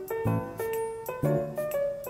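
Background music: a light keyboard tune with a new note about every half second.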